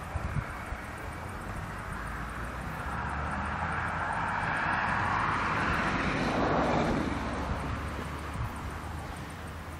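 Engine noise of something passing by: it swells to a peak about six and a half seconds in, drops in pitch as it passes, and fades, over a steady low rumble.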